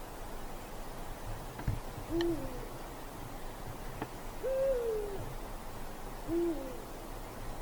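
Eurasian eagle-owl hooting, three deep hoots about two seconds apart; the middle hoot is higher and longer and falls in pitch.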